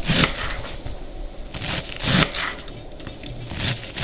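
Kitchen knife chopping a bunch of fresh dill on a wooden cutting board: a few irregularly spaced crisp cuts, each stroke knocking on the board.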